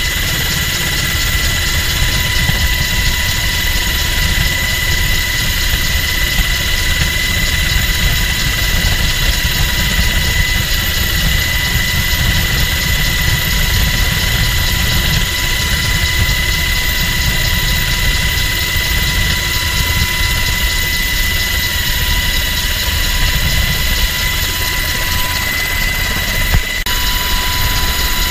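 MH-60 Jayhawk helicopter in flight, heard from inside its cabin with the side door open: a steady, loud drone of twin turboshaft engines and rotors, with a heavy low rumble, a steady high-pitched whine and a rushing noise. There is a brief dip about a second and a half before the end.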